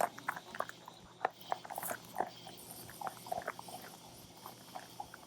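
Puppies chewing and gnawing on a raw ox tail bone: irregular wet crunches and clicks of teeth on bone and meat.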